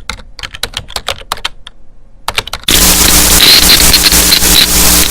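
Rapid clicking like typing on a computer keyboard for about two seconds. After a short pause, a loud, steady rush of noise with a low hum under it starts suddenly.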